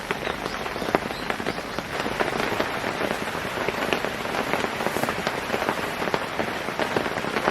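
Heavy rain pattering: many small irregular drop hits over a steady hiss.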